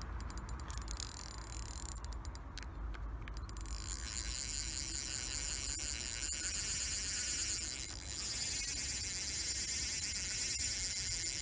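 Fishing reel's clutch (drag) giving line with a fast clicking buzz, starting about four seconds in: a hooked carp is running and stripping line off the reel.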